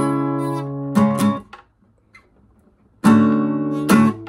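Acoustic guitar strumming a chord fretted around the fourth to sixth frets. One strum rings out, two quick strums follow about a second in, and after a short silent gap come two more strums, about three and four seconds in.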